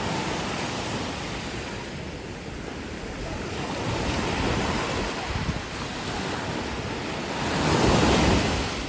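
Sea waves washing onto a beach in a steady surf hiss. A bigger wave surges and breaks loudest near the end.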